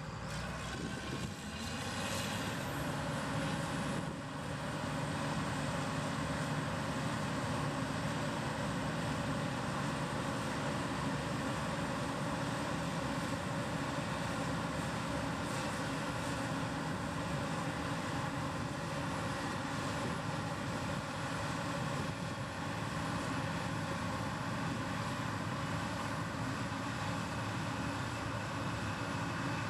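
Combine harvester running steadily: a constant machine drone with a thin high whine on top, which rises and falls briefly about two seconds in and then holds level.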